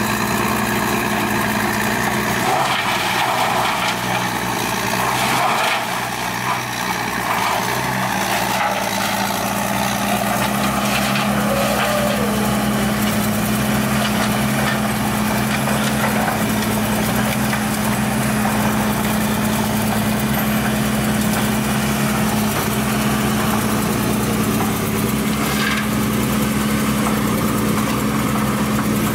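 Heavy diesel machinery running steadily: the engines of an excavator and a wood grinder giving a constant low drone.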